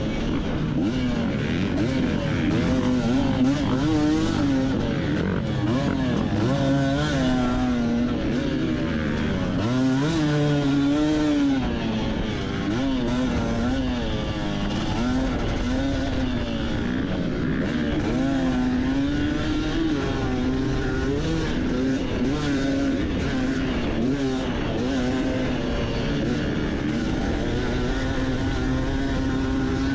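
Kayo KT250 two-stroke dirt bike engine being ridden hard, its pitch climbing and dropping over and over as the throttle is opened and chopped through the track's corners and jumps.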